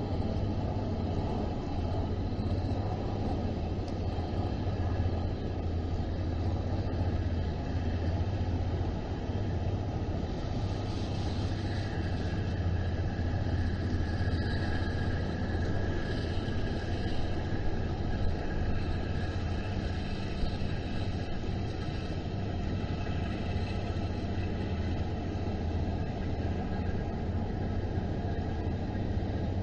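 Steady low rumble with a faint hiss over it: open-air harbor ambience at the waterfront.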